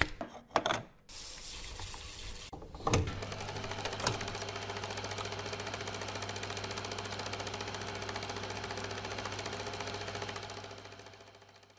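Vintage film projector: a few clicks and knocks as the film reel is handled and mounted, a knock about three seconds in, then the projector running with a steady, fast clatter over a low hum, fading out near the end.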